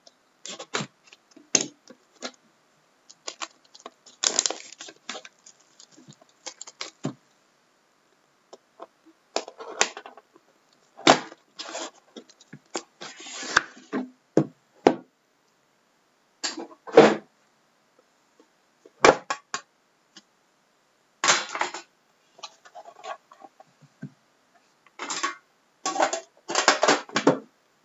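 Hands handling a hockey trading-card box, its cardboard outer box and a shrink-wrapped inner box: crinkling of plastic wrap, scraping of cardboard and light knocks on the table, in irregular bursts with short pauses.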